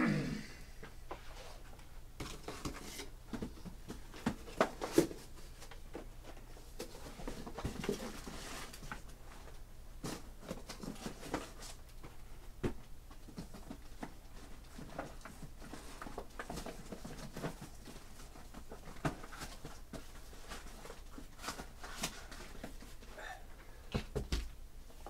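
Sporadic sharp clicks and light taps a few seconds apart, with faint rustling between and a small cluster of taps near the end, from something handled in a small room.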